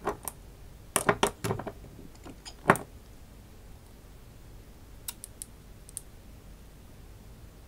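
Small bottle and cap clicking and knocking against each other and the tabletop as they are handled: a quick cluster of clicks about a second in, one sharper knock near three seconds, then a few faint ticks around five to six seconds.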